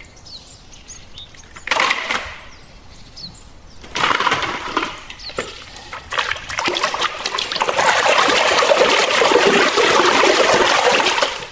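Water splashing and running, in short bursts at first and then steadily and loudest over the last few seconds.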